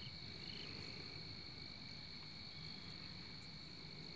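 Faint crickets: a steady high-pitched trill, with a separate short chirp repeating about every half second in the first second or so.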